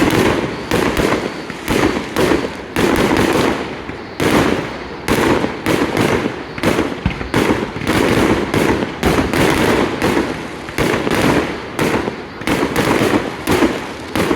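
Fireworks display going off in a dense barrage: sharp bangs several times a second, one after another, with crackling between them.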